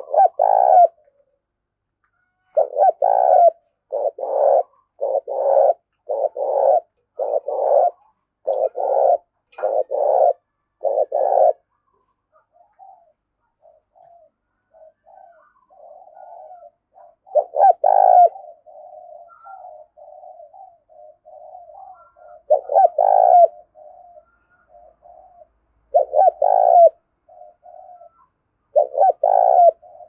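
Caged decoy spotted dove cooing: a quick run of loud coos for about the first ten seconds, then softer, quieter cooing broken by loud coos every few seconds.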